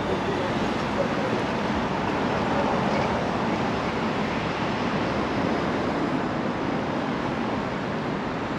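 Steady rushing background noise, like wind on the microphone, with no distinct engine note.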